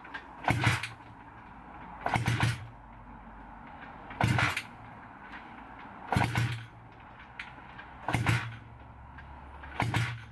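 Honda CB250 engine being kick-started over and over, about one kick every two seconds, six in all. Each kick turns the engine over in a short burst, but it does not keep running.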